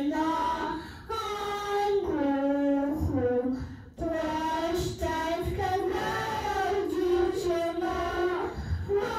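Children singing a song into microphones, in short phrases of long held notes.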